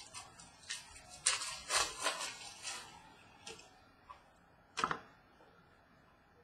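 Trading cards being handled and flicked through: a quick run of crisp paper-card rustles and clicks, then a few single clicks, the sharpest about five seconds in.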